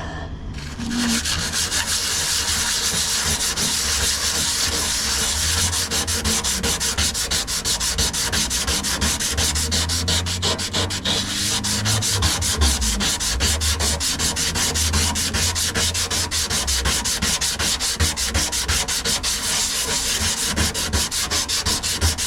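Fine sandpaper rubbed by hand over the car's fuel tank in rapid back-and-forth strokes, starting about a second in and keeping up steadily. The surface around the pinholes is being scuffed clean so that repair putty will stick.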